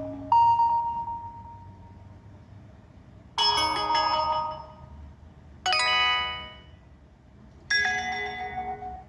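HTC One E9+ phone playing its preset notification tones one after another: four short electronic chimes, each a different tone, about two to three seconds apart, each ringing out and fading.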